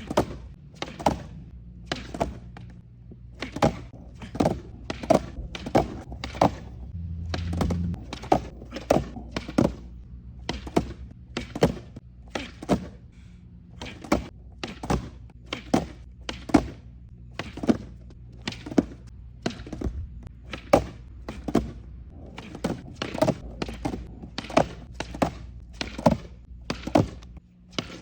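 Skateboard tail and wheels knocking on a hard floor over and over during repeated ollie attempts, about one to two sharp knocks a second, with a low steady hum underneath.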